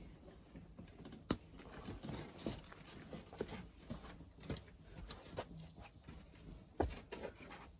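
Scattered light clicks and crackles at a garden campfire, with two sharp, louder knocks, one about a second in and one near the end.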